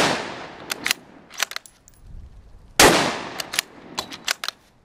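Ruger American Predator bolt-action rifle in .223 firing: one shot at the very start and another about three seconds in, each with a short echoing tail. Between the shots come the quick metallic clicks of the bolt being worked to chamber the next round.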